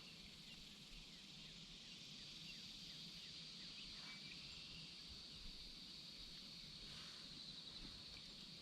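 Quiet outdoor ambience: a faint, steady high-pitched insect drone, with a few faint short chirps.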